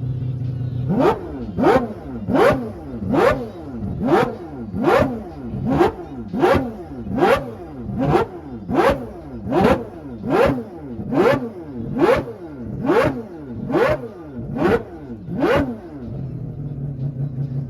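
Rotary engine idling, then revved in quick rhythmic throttle blips, each one a sharp rise and fall in pitch, about one every 0.8 seconds for some fifteen seconds, before settling back to idle.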